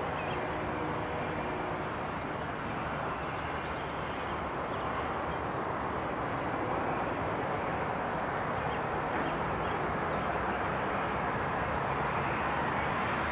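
Airbus A320-200 airliner on final approach: a steady jet-engine rumble that slowly grows louder as the plane draws nearer.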